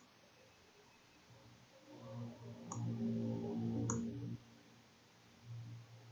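Two computer mouse clicks about a second apart, over a low steady hum that lasts a couple of seconds in the middle.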